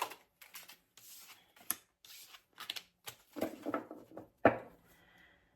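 A deck of tarot cards being shuffled and cards drawn: a run of short, irregular rubbing and sliding sounds with brief gaps between them.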